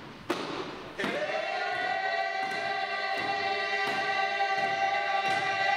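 Frame drum beaten at an even pulse, about three strokes every two seconds. About a second in, voices come in singing one long held note over the drumming.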